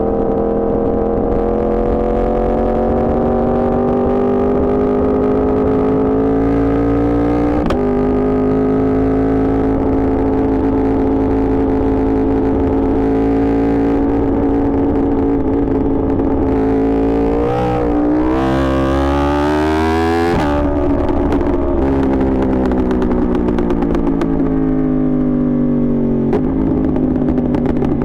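Yamaha R1 inline-four sport bike engine running under way. Its pitch climbs slowly, drops at a gear change about a quarter of the way in, then holds steady. It wavers for a few seconds past the middle, then falls away as the bike slows near the end.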